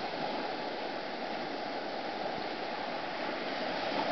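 Small surf washing up and draining back over the sand at the water's edge, a steady rushing wash.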